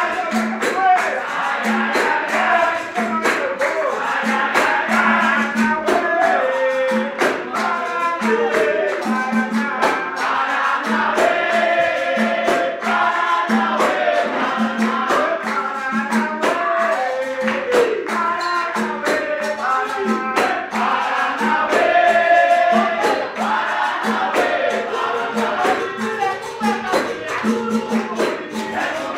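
Capoeira music: voices singing together over hand percussion, with a jingling tambourine-like beat keeping a steady rhythm.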